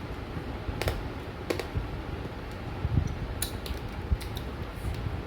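Scattered light clicks and taps of eating at a meal, a few in all, over a steady low background rumble.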